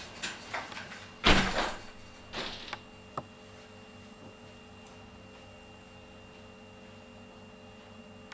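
A few light clicks and two short scraping, rustling noises in the first three seconds, the first the loudest, then a single sharp click and quiet room tone with a faint steady hum.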